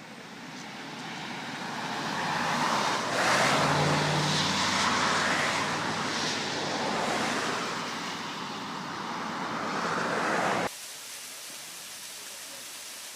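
Traffic noise: a motor vehicle's tyre and engine sound swelling as it passes on a road. It cuts off suddenly near the end to a steady, quieter rush of flowing water.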